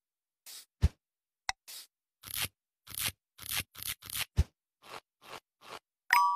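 Wire being twisted tight around a garden hose joint with a screwdriver and pliers: a series of short rasping scrapes, with a sharp click about a second in. Near the end a brief ringing tone sounds.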